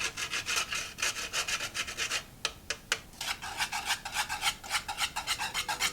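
Whole nutmeg being grated on a fine grater: quick, rhythmic rasping strokes, about five a second, with a brief slowdown a little past two seconds in.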